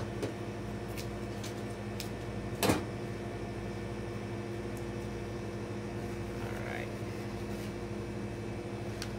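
Steady hum of the shop's floral cooler refrigeration running, with a sharp click about two and a half seconds in and a few faint ticks before it.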